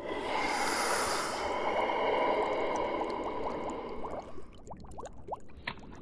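A loud breathy hiss, like a forceful exhale, lasting about four seconds, then a quieter run of short clicks and brief rising chirps.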